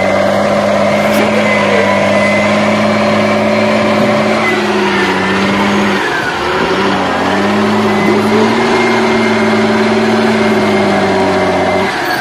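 John Deere 7720 tractor's six-cylinder diesel engine running steadily under load while the tractor is stuck deep in mud. The engine note dips briefly about halfway through, then holds steady again.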